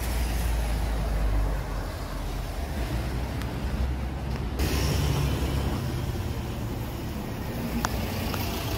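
City street traffic noise: a steady rumble of passing road vehicles, heaviest and lowest in the first couple of seconds, with more hiss from about halfway through.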